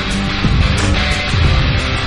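Loud, heavy rock music with guitar and a steady drum beat.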